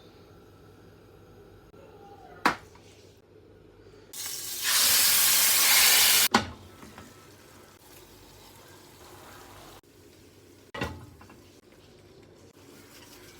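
Kitchen sounds: a sharp knock, then a loud hiss lasting about two seconds that cuts off suddenly with a knock, and another knock later.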